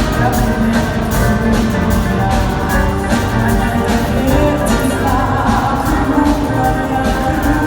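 A band playing a song with a steady drum beat under sustained melodic instruments.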